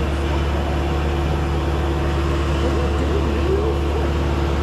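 A vehicle engine running steadily with an even, low drone.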